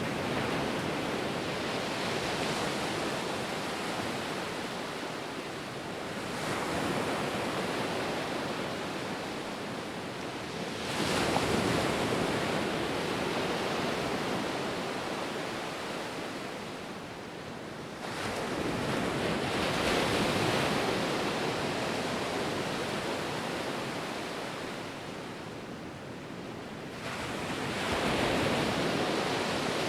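Ocean surf: waves breaking and washing in, the rush swelling and fading about five times, every five to nine seconds.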